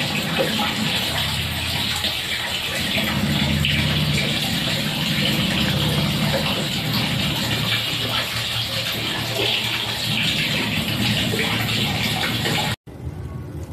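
Water rushing and swirling in a mini washing machine's tub: a steady, loud rush with a low hum underneath. It cuts off abruptly near the end.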